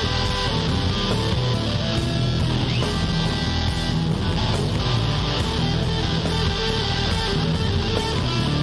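Instrumental blues-rock background music with guitar and a steady beat.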